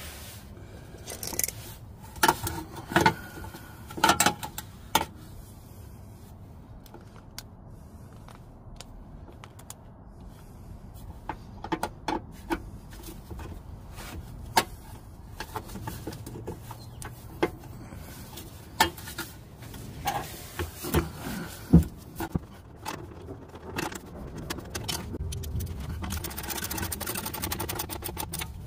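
Scattered clicks, knocks and scrapes of gloved hands handling an EVAP charcoal canister and its fittings. Near the end, a ratchet wrench clicks as a mounting bolt is turned.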